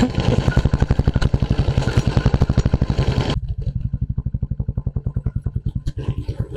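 Royal Enfield Classic 350's single-cylinder engine running steadily at low revs, an even thump of some eight to ten beats a second. About three seconds in the sound turns muffled, leaving only the low thump.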